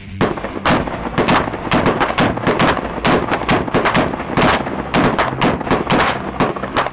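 Rapid gunfire, a steady string of shots at about five a second kept up throughout, as rounds hit and burst a row of pressurized aerosol cans of shaving cream and whipped cream.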